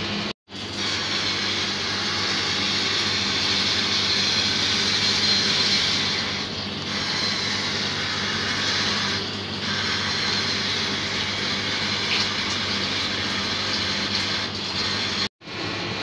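Convection oven fan running: a steady airy hiss over a low hum, cutting out briefly twice, near the start and near the end.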